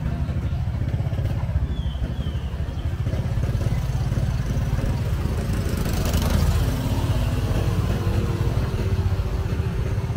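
Motorbike engine running while riding along a street, with heavy wind rumble on the microphone. A passing motorbike swells up about six seconds in.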